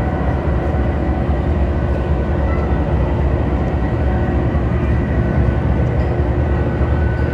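Diesel-electric locomotive's engine running steadily as it pulls a passenger train slowly out of the station, a low rumble with a few faint steady tones above it.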